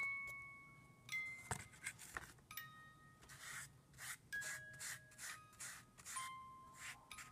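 Light background music of bell-like, glockenspiel-style notes that ring and fade. Between and under them come short scratchy rubbing strokes, several in quick groups.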